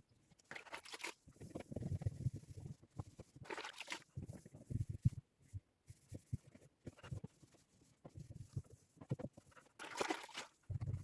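Cleaning a fridge by hand: a cloth rubbing and wiping, with scattered light knocks and clicks of plastic shelves and parts being handled. Three short hissing swishes come about half a second in, about three and a half seconds in, and near the end.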